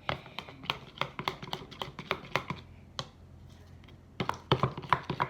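Slime mixture being stirred in a bowl to work in red colouring: quick, irregular clicking and squelching taps. They pause briefly about three seconds in, then resume louder.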